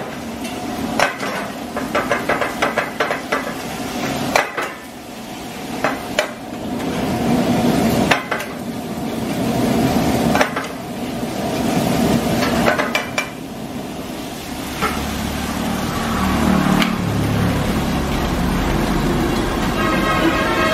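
Metal spatula scraping and knocking against a steel frying pan as crab in ghee masala paste is stirred over a gas flame, with the oil sizzling underneath. The knocks come in irregular runs through the first two-thirds, and a low rumble joins in for the last few seconds.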